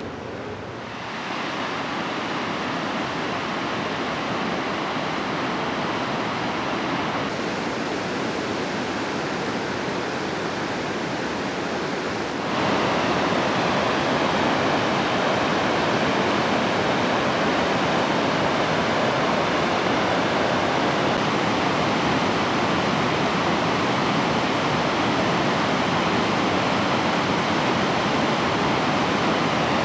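Bow Falls on the Bow River, a broad waterfall and rapids, rushing with a steady roar of white water. It gets louder in steps, about a second in and again around twelve seconds in.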